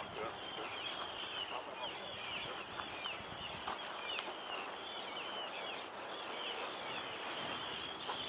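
A flock of many birds calling at once, short high chirps overlapping without pause, over a steady rushing noise.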